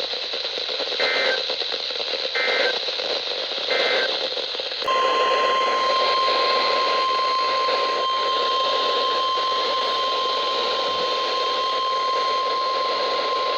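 Three short warbling EAS/SAME digital data bursts over NOAA Weather Radio static, the end-of-message code closing the previous alert. About five seconds in, the NOAA Weather Radio 1050 Hz warning alarm tone starts and holds steady for about nine seconds, announcing the next warning.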